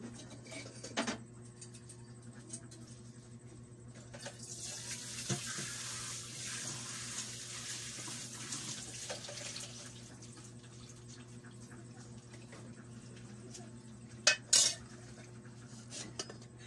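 Kitchen work at a sink: water runs for several seconds, with clinks of dishes and a pot being handled. Two sharp knocks of a pan or dish come close together near the end.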